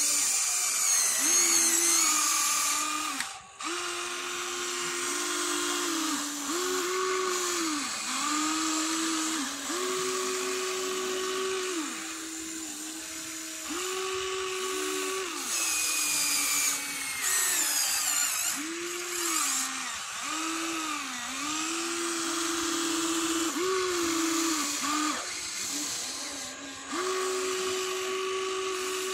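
Electric motors and gears of a toy-scale RC excavator whining in short spells of a second or two as the boom, arm and bucket dig and swing. The pitch rises as each movement starts and drops as it stops.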